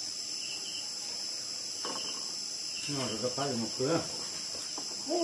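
Steady, high-pitched chorus of night insects, likely crickets, chirring without a break. A person's voice cuts in briefly about three seconds in.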